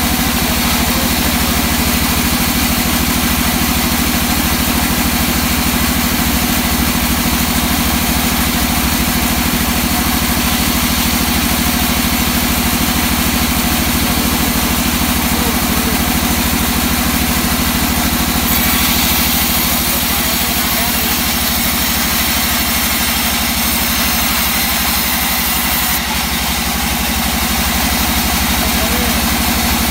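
Large vertical band saw running steadily while its blade rips lengthwise through an old teak beam: a continuous machine hum with the hiss of the cut over it. A brighter, higher hiss comes in about two-thirds of the way through and stops abruptly a few seconds before the end.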